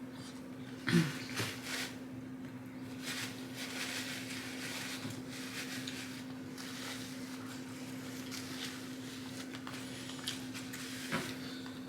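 Close-up eating sounds: chewing and handling of fast food, with a short sharp sound about a second in and a few soft clicks near the end, over a steady low hum.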